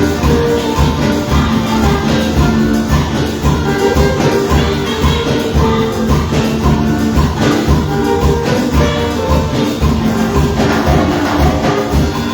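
Live Latin worship band playing a steady upbeat rhythm, with a tambourine over it.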